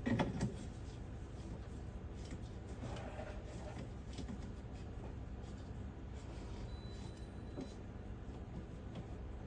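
Faint rustling and handling noises over a steady low hum, with a brief scrape right at the start and another about three seconds in.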